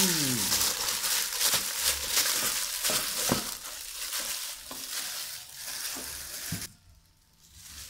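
Plastic bag over a hand crinkling as it kneads and mixes a minced pork mixture in a steel pot: a dense crackling that stops suddenly near the end.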